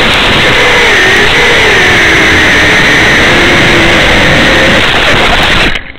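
FPV racing quadcopter's brushless motors whining under a heavy hiss of static, the pitch wavering up and down with throttle. The sound cuts off abruptly near the end.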